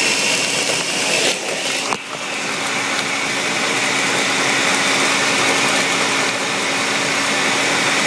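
Countertop blender running at a steady speed, with a couple of sharp knocks in the first two seconds.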